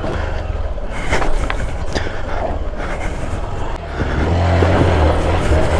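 Off-road motorcycle engine running at low speed as the bike crawls over rocks, growing louder about four seconds in. A few sharp knocks sound between one and two seconds in.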